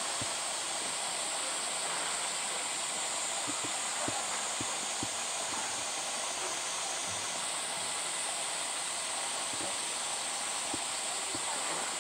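Steady high-pitched drone of a summer cicada chorus, changing slightly about seven seconds in, with a few faint clicks.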